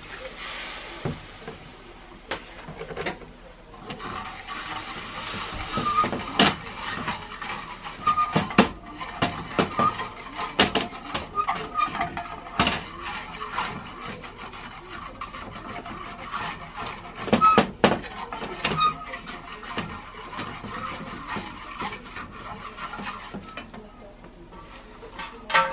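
A kitchen utensil clicking and scraping against a pan as food is stirred, with many irregular knocks.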